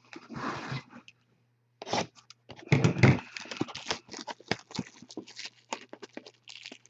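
A cardboard Topps Finest trading-card box being torn open by hand. A rustle as it is picked up is followed by loud rips and knocks about two to three seconds in, then a long run of small crackling and clicking as the flaps and packaging are worked loose. A faint low hum sits underneath.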